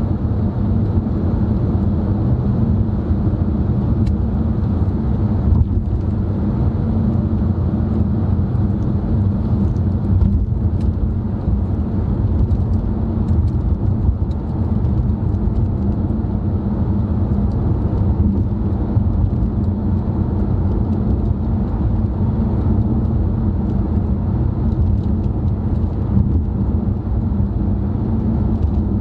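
Steady road noise of a car cruising, heard from inside the cabin: a low, even drone of tyres and engine that stays the same throughout.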